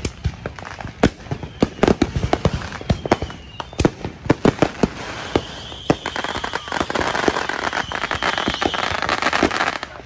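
Consumer fireworks and firecrackers going off all around: a rapid, irregular string of sharp bangs and pops, joined about halfway through by a dense crackling hiss with a steady high whistle over it that stops just before the end.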